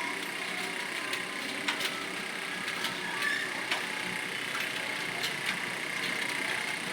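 Computer keyboard being typed on during a typing test, irregular key clicks over a steady background hum.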